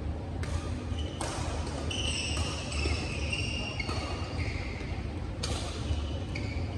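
Badminton rackets striking a shuttlecock in a doubles rally: about five sharp hits spaced a second or so apart, with shoes squeaking on the court floor in the middle, over a steady low rumble.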